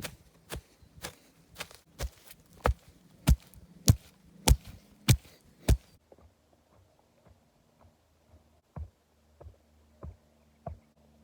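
Footsteps of a person walking on hard, dry ground, one sharp step about every half second. About halfway through, the steps turn softer and duller and come a little slower.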